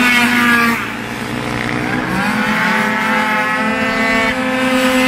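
Racing scooters' two-stroke engines revving high as they pass along the track. One loud engine note drops away under a second in, then another engine's pitch rises and holds a high, buzzing note.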